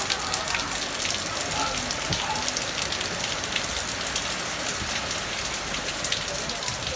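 Heavy typhoon rain falling steadily on a wet street and pavement, a dense patter of drop hits and splashes.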